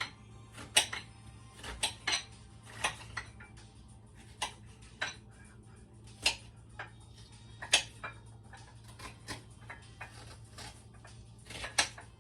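Irregular sharp clinks and knocks of kitchen utensils and dishes being handled, about one every second, over a low steady hum.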